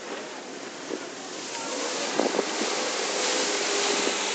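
Jet ski running close by: a rushing of churned spray and wake water that builds and grows louder over the second half, over a faint engine drone. Wind noise on the microphone, and a couple of short knocks a little past two seconds in.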